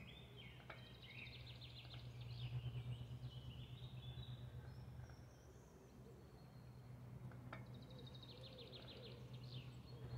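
Faint birdsong: two phrases of quick, repeated high chirps, about a second in and again near the end, over a steady low background hum.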